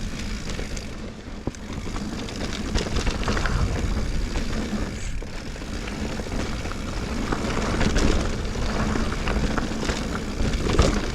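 A mountain bike rolling along a dirt trail: steady wind rush and tyre noise, with the frame and drivetrain rattling and knocking now and then over the bumps.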